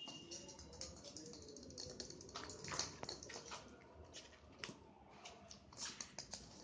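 Kittens' paws and claws scrabbling and tapping on concrete and a plastic tarp as they chase a small ball: faint, irregular light clicks.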